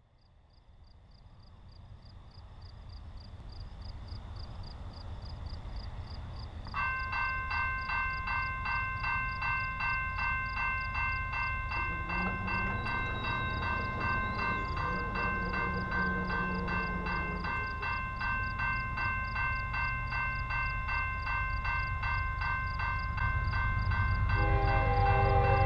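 Railroad crossing bell starts ringing about seven seconds in, a steady rhythmic clang, over crickets chirping. The low rumble of an approaching train grows louder throughout. Near the end a deeper, louder tone joins in.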